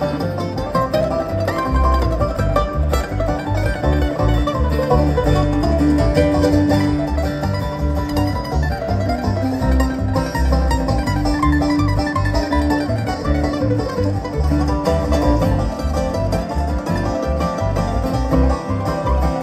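Live bluegrass band playing an instrumental passage, with banjo rolls over mandolin, acoustic guitar and electric bass, amplified through a stage PA.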